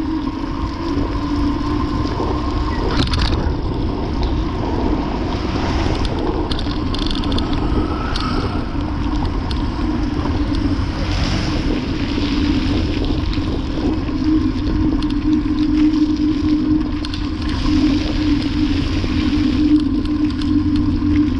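Wind buffeting the camera microphone and bicycle tyres hissing over wet pavement on a ride in the rain, with a steady hum under the noise.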